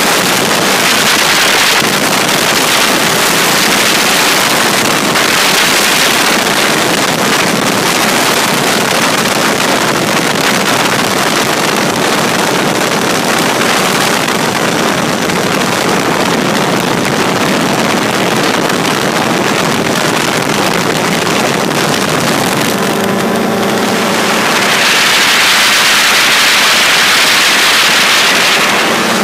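Drifter ultralight aircraft in flight: the engine running steadily under loud wind rush on the microphone. In the last few seconds the engine's steady hum comes through more clearly beneath the wind.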